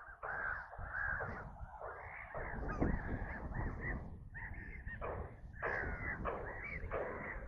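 A flock of gulls screaming: harsh, rasping calls one after another, often overlapping, with no break.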